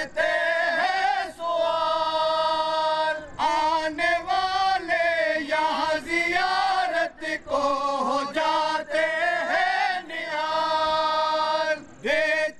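Bohra men chanting a devotional recitation together, their voices holding long drawn-out notes in phrases separated by short breaths.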